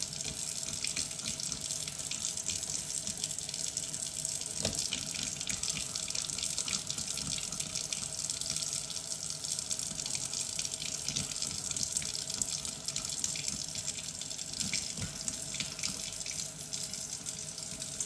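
Kitchen tap running a thin, steady stream of water into the sink.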